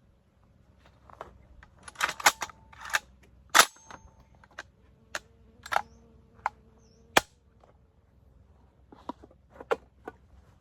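Sharp metallic clicks and clacks of PKM machine gun parts being handled and fitted together, about a dozen at irregular intervals, loudest in a cluster a couple of seconds in, with a few more near the end.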